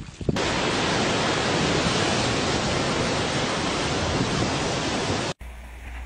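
Steady, even rushing noise that starts abruptly just after the start and cuts off sharply about five seconds in.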